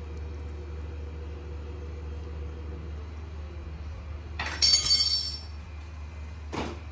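A metal spoon clatters down with a bright, ringing clink about four and a half seconds in. A shorter, duller knock follows near the end.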